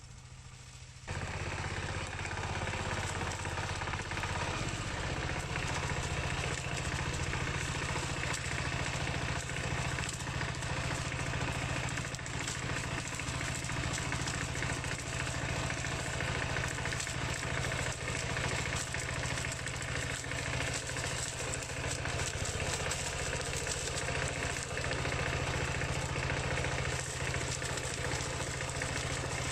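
Dongfeng single-cylinder diesel engine of a two-wheel paddy tractor running steadily with a rapid rattle. It gets suddenly louder about a second in.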